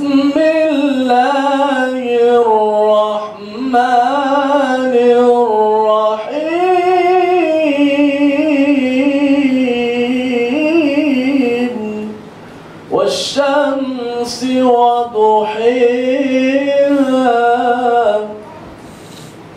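A man's solo melodic Quran recitation (tarannum) into a hand microphone: long ornamented phrases with a wavering voice, broken by short breaths, a longer pause a little past the middle, and the last phrase ending near the end.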